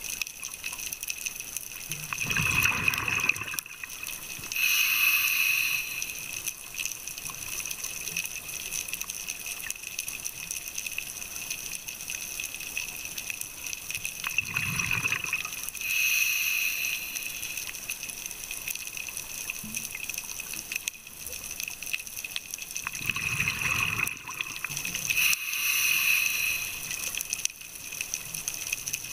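Scuba diver breathing through a regulator underwater. There are three breaths about ten seconds apart, each a rush of exhaled bubbles and a hiss from the regulator, over a steady underwater hiss.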